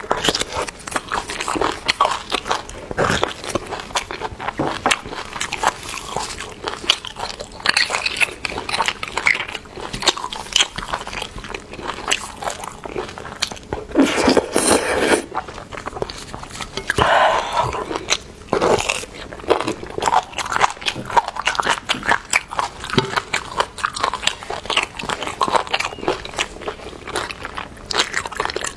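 Close-miked eating sounds of a person biting into and chewing braised beef bone marrow and the meat around the bone: irregular wet bites, smacks and chewing, with some crunching.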